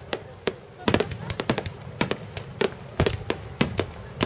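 Fireworks finale: aerial shells bursting in a rapid, irregular barrage of sharp bangs, about four a second.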